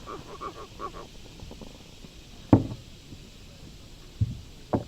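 A short run of quick croaking pulses in the first second, then a sharp knock about two and a half seconds in and two smaller thumps near the end: knocks on a kayak while a freshly caught channel catfish is handled.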